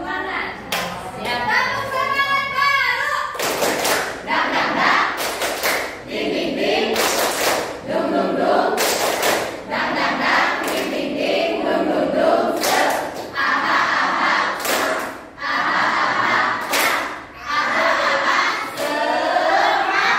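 A group of students singing together in unison, with sharp hand claps every second or two as part of an action song.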